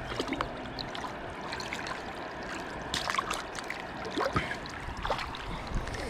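Creek water trickling, with irregular splashes a few times as a caught smallmouth bass is rinsed off in the stream.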